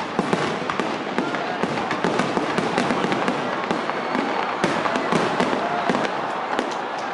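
A fireworks display going off in quick succession: a dense, continuous run of sharp bangs and crackles, several a second.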